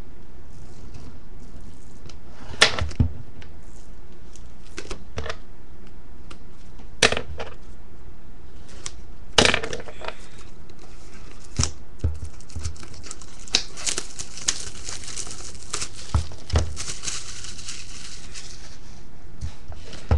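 A small retail box and its packaging being handled and opened: scattered knocks and taps, then, from a little past halfway, a long stretch of crinkling and tearing as the packaging is pulled open.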